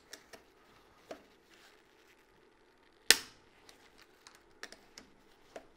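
Click-type torque wrench tightening a brake line banjo bolt on a motorcycle master cylinder: a few faint ticks, then one sharp, loud click about three seconds in as the wrench breaks over at its set 15 Nm, the sign that the bolt has reached torque.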